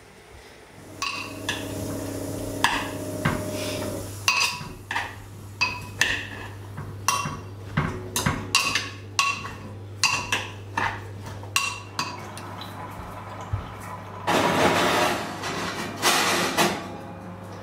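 Kitchen dishes and pots being handled: a string of clinks and knocks of pottery and metal, over a low steady hum that starts about a second in. Near the end there is a couple of seconds of rushing noise.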